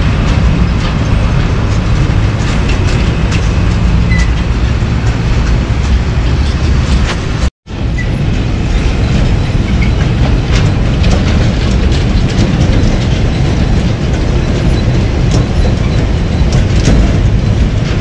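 Heavy trucks running slowly over a rough dirt road: a loud, steady low rumble of engines and tyres with rattling and crunching throughout, broken by a brief silent gap about seven and a half seconds in.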